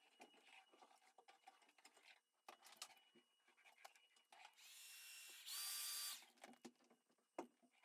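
Handheld hair dryer drying the wet watercolour painting. Its motor whirs up with a rising whine for about a second, then runs loud at full speed for under a second and cuts off. Light taps and handling clicks come before and after.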